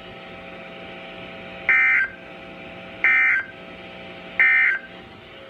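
NOAA Weather Radio SAME end-of-message code: three identical short, shrill data bursts about a second and a half apart, marking the end of the severe thunderstorm warning broadcast. A faint steady hum from the radio runs under them.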